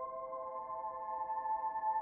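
Calm ambient background music of long, held tones, moving to a new chord about a second and a half in.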